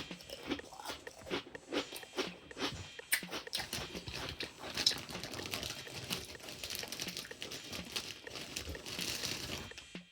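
A person crunching and chewing oven-baked sun-dried tomato and basil crisps, a rapid, irregular run of crisp cracks that goes on throughout.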